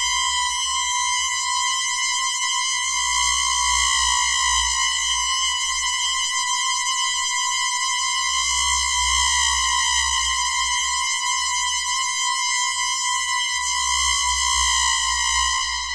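Synthesized sci-fi sound effect: a steady electronic tone with a buzzy stack of overtones, its pitch wavering slightly, over a fluttering low rumble. It begins to fade out right at the end.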